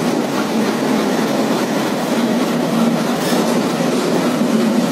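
Passenger train running along the rails: a steady loud rumble with the wheels clattering over the rail joints.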